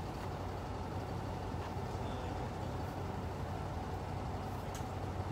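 Steady rumble of highway traffic, cars and trucks crossing a steel arch bridge, with a constant low hum underneath.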